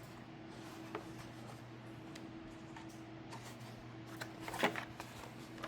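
Quiet room tone: a steady low hum with a few faint clicks, the loudest a little before five seconds in.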